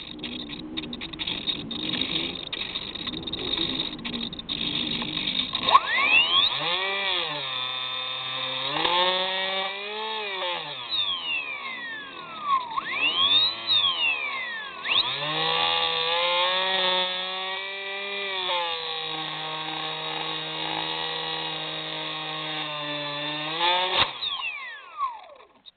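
Hubsan Spyhawk model plane's electric motor and propeller, picked up by the plane's onboard camera, whining and rising and falling in pitch over and over as the throttle changes, then holding one pitch for a few seconds. Near the end a sharp knock as the plane comes down in the grass, and the motor sound dies away.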